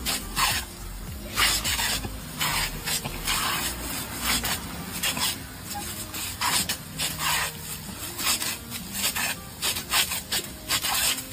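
Water jet from a sprinkler hissing and spattering, breaking into short irregular bursts about twice a second as the dogs bite into the stream.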